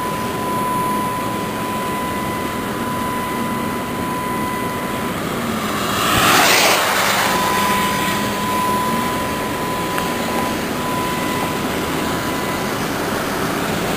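Steady road and wind noise of a car being driven, with a thin steady high tone running through it and a louder swell about six seconds in.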